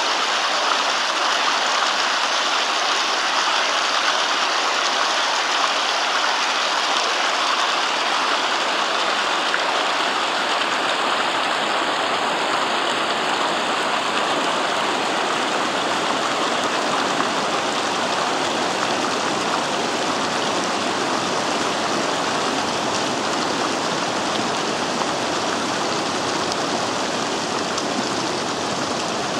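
The fast-flowing Vydra mountain river rushing over its rocky bed: a loud, steady, unbroken water noise.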